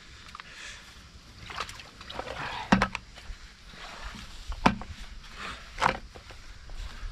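A shovel working waterlogged clay loam in a flooded trench: three sharp thuds about a second or so apart, with water sloshing and splashing around them.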